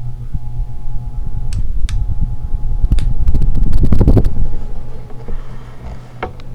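Homestead Whisperfan I ceiling fan running, its motor giving a steady low hum under a heavy rush of moving air that swells about four seconds in and then eases. A few sharp clicks come over it.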